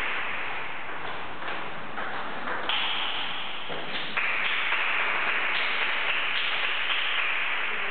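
Table tennis ball clicking sharply off paddles and the table during play, several irregular strikes, over a steady hiss of hall noise.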